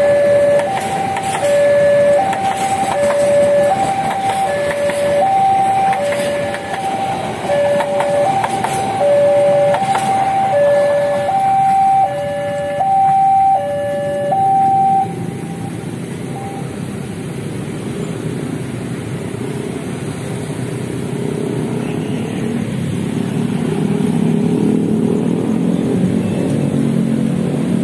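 Railway level-crossing warning alarm sounding two alternating tones, about one cycle a second, over the clatter of a passing train's wheels; the alarm stops about fifteen seconds in. After that a steady low rumble of engines and traffic grows louder toward the end.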